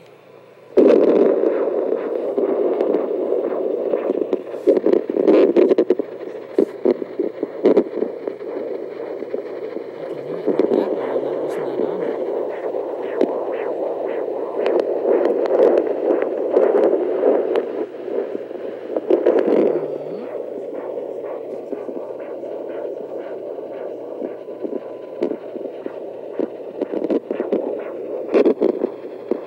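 Portable fetal Doppler ultrasound unit's speaker output: a loud rushing noise broken by many clicks and scrapes as the gel-covered probe is moved over a pregnant Airedale terrier's belly, searching for a puppy's heartbeat.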